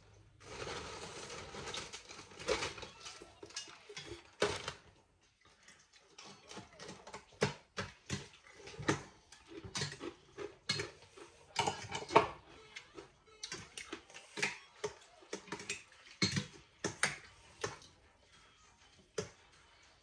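Kitchen utensils clinking and knocking against bowls and pots. The sharp taps come irregularly, several seconds apart.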